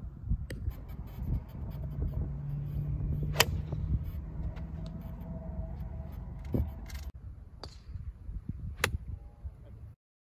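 Wind rumbling on the microphone, with two sharp cracks of golf clubs striking balls, one about three seconds in and one near the end. A steady low hum runs for a few seconds in the middle.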